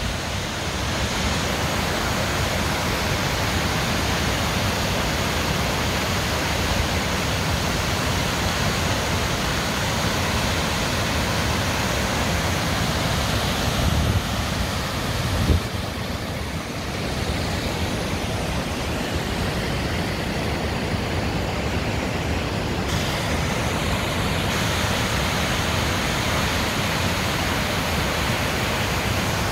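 Mountain waterfall and cascading stream rushing over rocks, a steady, even roar of falling water. A brief low thump comes about halfway through.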